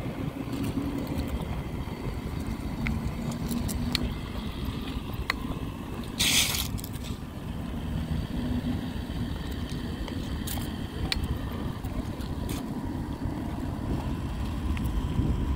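Toy RC car's small electric motor running and its wheels rolling over asphalt: a steady low rumble with a faint whine that comes and goes, and a brief hiss about six seconds in.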